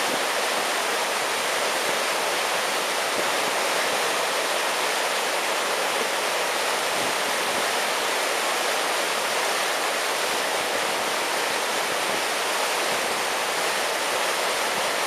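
Churning river whitewater rushing at a steady level, a continuous even noise with little low rumble.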